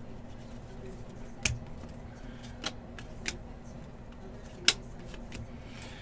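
Football trading cards being flipped and sorted by hand: a few short, sharp clicks and snaps of card stock, over a low steady hum.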